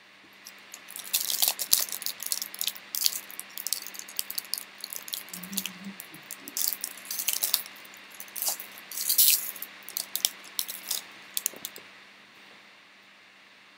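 Plastic-foil trading-card pack crinkling and crackling as it is handled and torn open by hand, a dense run of sharp crackles that stops about two seconds before the end.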